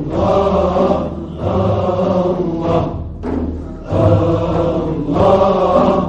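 Group of men chanting in unison in a Sufi dhikr, in short repeated phrases with brief breaks between them, with large frame drums beating underneath.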